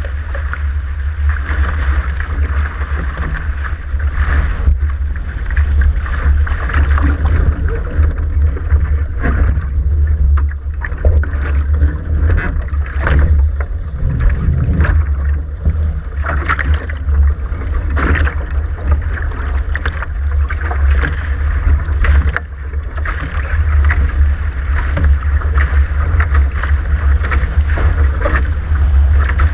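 Wind buffeting the microphone of a camera on a catamaran under sail at speed, as a constant heavy rumble, over water rushing along the hull with frequent irregular splashes of spray.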